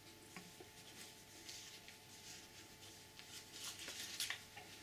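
Faint rustling of paper and card as a wool-gloved hand handles a warranty leaflet inside a cardboard camera box, with small scattered ticks and clicks that get busier near the end.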